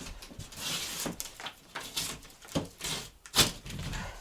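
Knife scraping along a sheet of plasterboard (drywall), cutting through its paper, with several sharp knocks as the board is handled.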